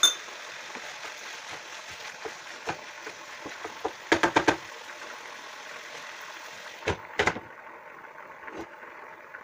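Chicken and onions sizzling in a frying pan, with a quick run of wooden-spatula taps against the pan about four seconds in as it is stirred. Near the end a glass lid goes on with two knocks, and the sizzle turns softer and muffled under it.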